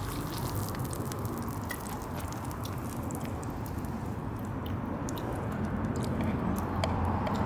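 Wood campfire crackling, with many small sharp pops over a steady low hiss.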